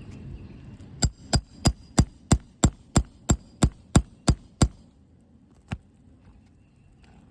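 Roofing hammer striking a nail puller about a dozen times in quick, even succession, about three blows a second, driving it under a roofing nail head in an asphalt shingle roof, then one more blow.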